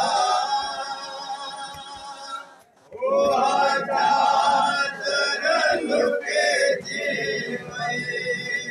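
Men singing a noha, a Shia mourning lament, a lead voice with others joining in; the singing breaks off briefly about two and a half seconds in and then resumes.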